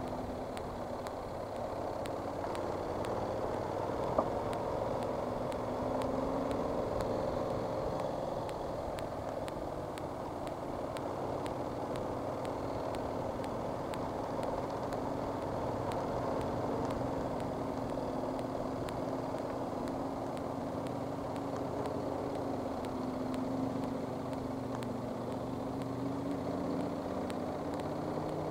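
Motorcycle engine running steadily under way, its pitch drifting a little, over wind and road noise. One short click about four seconds in.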